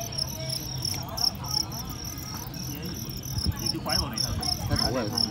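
Fighting crickets chirping: a steady run of short, high chirps, about three a second.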